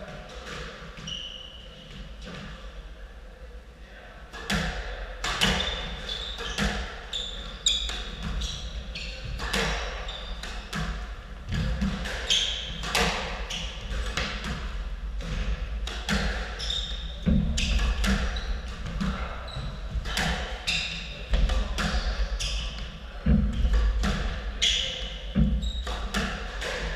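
Squash rally: the ball smacking off rackets and the court walls in quick succession, with short high squeaks of shoes on the wooden floor. The hits begin about four seconds in and keep coming.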